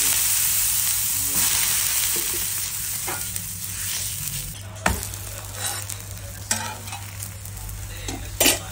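Water hissing and sizzling on a hot iron dosa tawa, boiling off in a cloud of steam and fading over the first few seconds: the sign of a very hot tawa. After that come a few brief knocks and scrapes as the tawa is wiped with a cloth.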